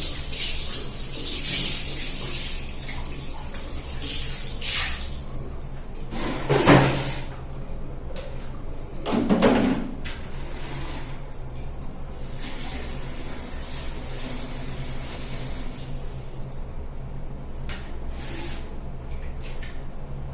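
Water from a tap splashing over hair being washed, with two heavier splashes and a stretch of steady running water, over a low steady hum.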